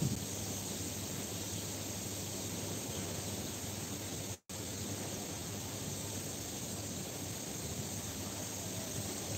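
Steady outdoor noise hiss with a faint low hum underneath. The sound cuts out for an instant about four and a half seconds in.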